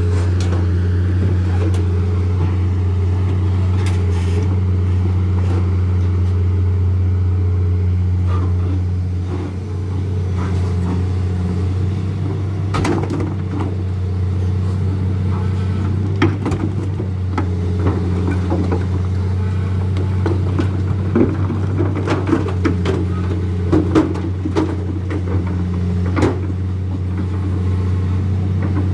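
Dump truck's diesel engine running steadily with a low hum, dipping briefly about a third of the way in. Scattered knocks and clatters come over it in the second half.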